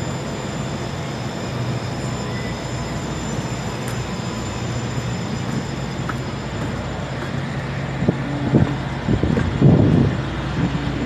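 Steady low hum of a ship's machinery running, with a few faint steady high tones over it. From about eight seconds in, irregular rumbles and knocks on the microphone.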